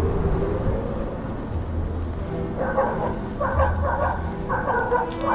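A dog barking repeatedly from about halfway, in short quick runs of barks, over a steady low rumble.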